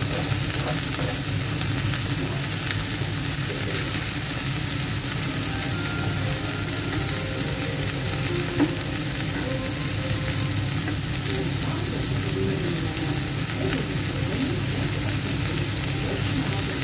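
Chicken strips sizzling steadily as they fry in oil on a griddle pan, with metal tongs stirring and turning them; one sharp knock a little past halfway.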